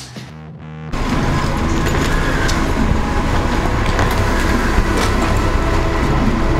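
A tail of background music ends, then loud, steady outdoor noise with a strong low rumble begins about a second in.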